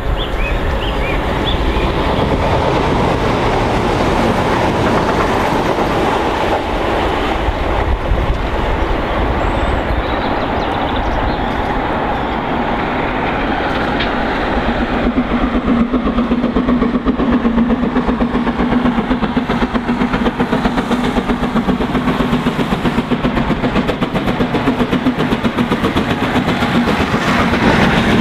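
A four-cylinder GWR Castle Class 4-6-0 steam locomotive hauling a train of carriages through a station at speed, its wheels clattering on the track. The sound grows louder about halfway through as the train draws near, and a steady low hum joins it from then on.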